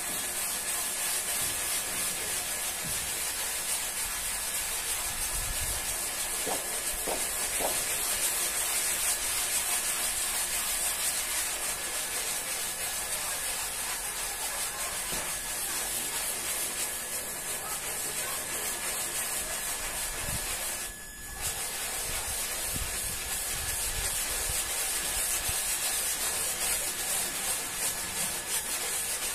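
Stiff hand brush scrubbing a soapy, wet rug pile: a steady wet scratching, with a brief break about two-thirds of the way through.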